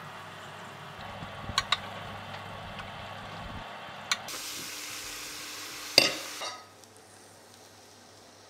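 Meat sizzling as it roasts in a glass baking dish, with a few sharp clinks of a metal spoon against the dish. A louder, brighter sizzle sets in about four seconds in and stops soon after the loudest clink, about six seconds in, leaving a quieter background.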